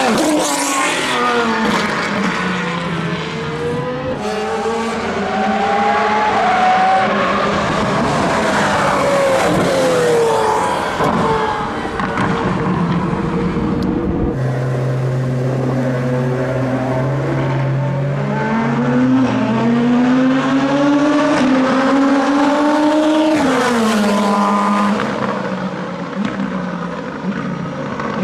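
Racing cars' engines passing on track, several at once, their pitch rising and falling as they accelerate and shift gears.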